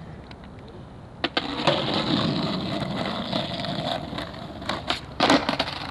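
Skateboard: two sharp clacks a little over a second in, then the wheels rolling on pavement for about three seconds, ending in a couple more clacks and a loud board slap near the end.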